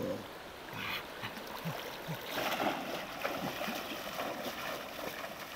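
Water splashing as a man wades through a shallow, rocky stream, over the steady rush of the flowing water. The splashing is loudest for about a second, a little over two seconds in.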